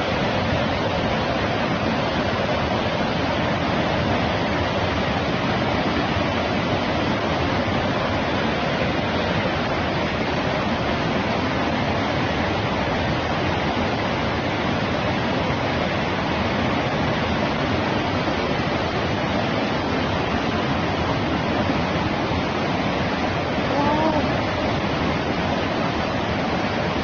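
Torrent of rushing water: a loud, steady, unbroken rush of heavy flowing water.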